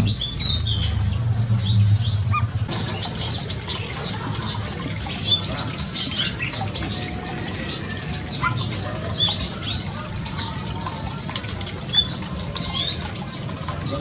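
Small aviary birds chirping: many short, high chirps that drop in pitch, scattered throughout, over the steady trickle of water running down a stone stream channel.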